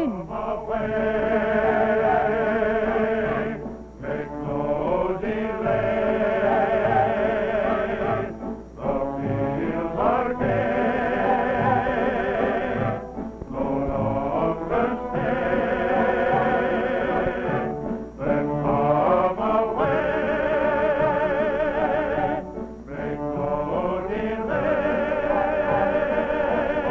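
Voices singing a song with vibrato over musical accompaniment, in phrases broken by short pauses every four to five seconds.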